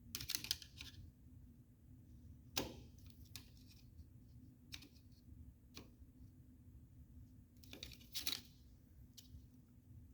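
Scattered metal clicks and short scrapes of a screwdriver bending down the small retaining tabs on a 1966 Chevy II Nova vent window frame, with a sharp click about two and a half seconds in and a longer scrape about eight seconds in.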